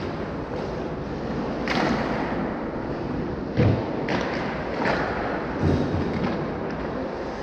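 Hockey game sound with steady rink noise and several knocks and scrapes of play. The loudest is a deep thud about three and a half seconds in.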